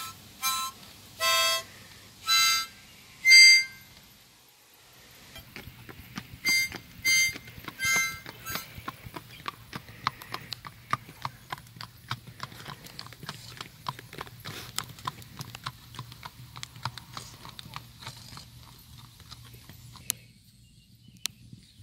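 A harmonica played in short single notes, then a shod horse's hooves clip-clopping at a walk on a paved path, with three more harmonica notes over the hoofbeats. The hoofbeats die away near the end.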